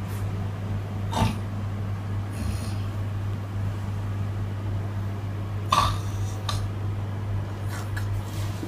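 A sleeping person's short snorts, three spaced several seconds apart, over a steady low hum.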